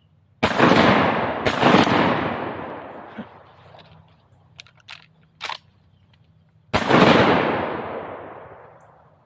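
Shotgun shots at ducks: two quick blasts about a second apart near the start and a third about 7 seconds in, each echoing and fading out slowly, with a few lighter clicks in between.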